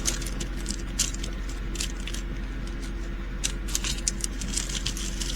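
Loose diamond-painting drills clicking and rattling as they are shaken out of a small plastic bag into a tray: scattered light, irregular ticks.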